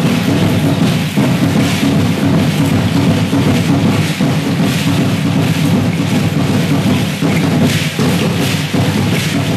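Aztec dance drumming: loud, steady drum beats with a rattling shake on the beats, a little under a second apart.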